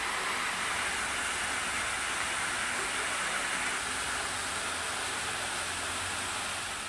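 A stepped artificial waterfall running, its water falling over stone steps in a steady, even rush.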